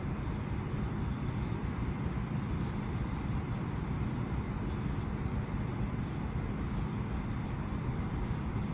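Steady low rumble of traffic, with a run of short high-pitched chirps on top, about two a second, which stop about seven seconds in.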